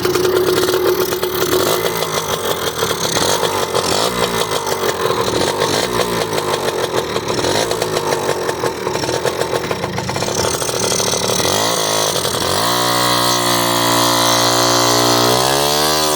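Jianshe Coyote 80 dirt bike's small two-stroke engine running on its new carburetor and throttle cable, its pitch wandering at first, then settling to a steadier tone about twelve seconds in, with a short rev near the end.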